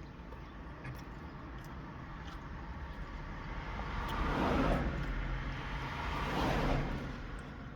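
Road traffic heard from inside a car: a steady low rumble, with two vehicles passing that swell and fade about four and a half and six and a half seconds in.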